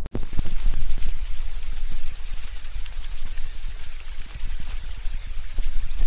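Steady monsoon rain falling in forest: a dense, even hiss with a steady high-pitched band over it and a low rumbling on the microphone.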